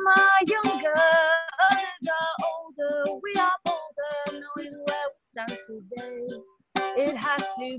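A woman singing a folk song with ukulele strumming behind her, the melody in held, sliding notes, with a short pause about six seconds in before the singing picks up again.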